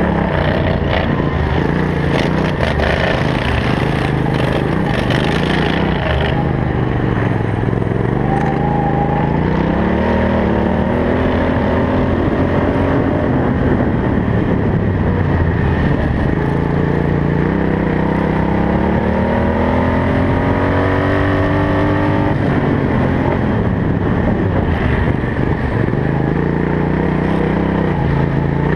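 Racing ride-on lawn mower's engine, heard from on board at full race pace. It is loud throughout. The note climbs as it accelerates down the straights and falls away into the corners, twice, with a sudden drop about three quarters of the way through.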